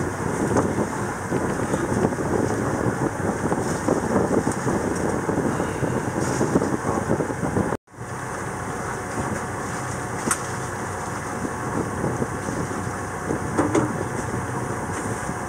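A sailboat's engine running steadily while motoring, with wind noise on the microphone. The sound breaks off for an instant about eight seconds in.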